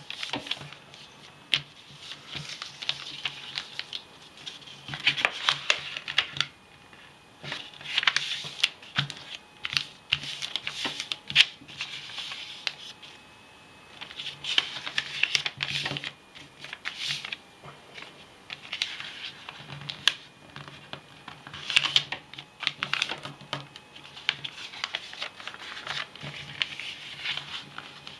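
A sheet of paper being folded by hand into a paper airplane: irregular rustling and crinkling as the folds are pressed and creased flat, with scattered sharp clicks and taps.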